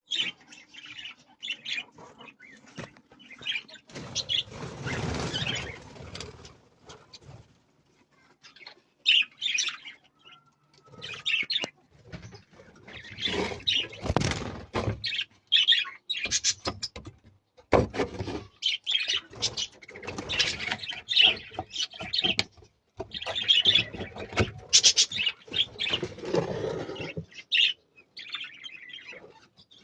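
Flock of budgerigars chirping and chattering in an aviary: rapid, high twittering calls in bunches throughout, with a few louder rushing bursts of noise.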